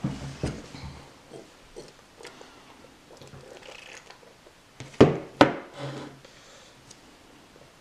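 A toddler sucking and slurping through the straw of a plastic sippy cup, with small grunting noises, then two sharp knocks about five seconds in as the cup is set down on the counter.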